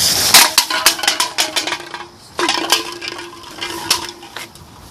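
A string of light clicks and clinks from hard objects being handled, with a sharper knock about half a second in, and a steady low tone from about halfway to near the end.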